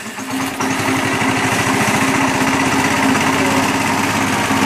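Honda 8 HP single-cylinder four-stroke engine, warm and just started, running on gasoline alone with its HHO hydrogen feed shut off. It picks up to a steady, even-firing run about half a second in.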